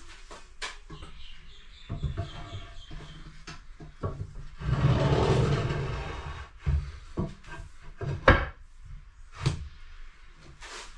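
A flat panel being handled and set upright on a polished stone benchtop against the wall: a louder scraping rub about five seconds in, and several sharp knocks as it is bumped and placed.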